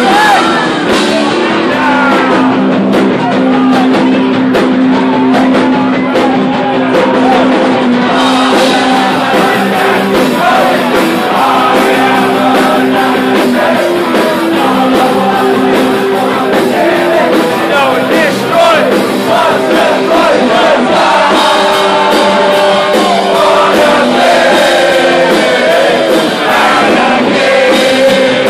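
Live punk rock band playing loud, with held electric guitar chords under a lead vocal, heard from within the audience.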